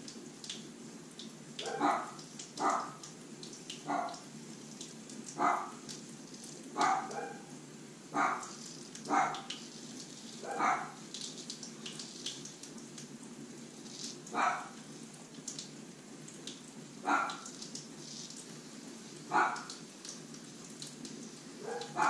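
Dogs barking in single barks, about eleven of them, spaced irregularly one to four seconds apart.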